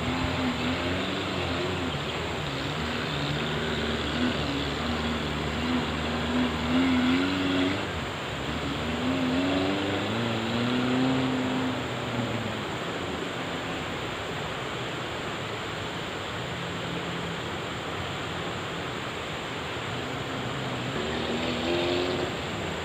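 Off-road Jeep's engine running and revving up and down under load, over a steady rushing noise. The engine pitch climbs and falls several times around the middle.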